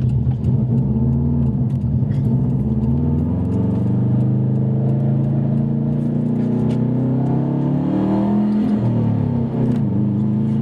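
2003 Subaru WRX's turbocharged flat-four engine heard from inside the cabin, pulling under hard acceleration, its revs climbing steadily, dipping briefly about eight and a half seconds in, then climbing again. This is the run where the engine still shows the hesitation under heavy throttle that sets a P0301 cylinder 1 misfire code; the owner suspects an air problem or a finicky injector.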